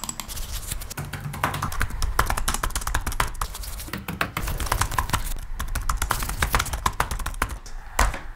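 Fast typing on a computer keyboard: a dense, irregular run of key clicks over a low hum.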